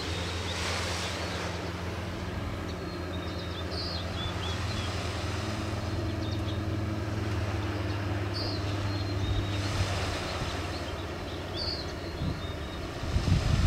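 Motorboat engine droning steadily in the distance as the boat runs at speed across the water. Small birds chirp now and then, and wind gusts on the microphone near the end.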